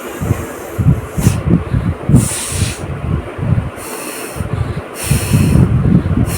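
A woman blowing her nose hard again and again. There are four forceful blasts of air about a second or so apart, with low puffs of breath against the microphone between them.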